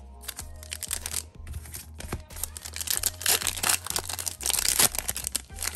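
Wrapper of a trading card pack torn open and crinkled by hand, irregular rustling that gets louder in the second half.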